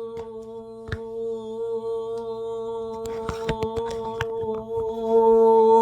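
A man's voice holding one long sung note on the word "ears", steady in pitch and swelling louder near the end. A few light clicks and knocks sound over it.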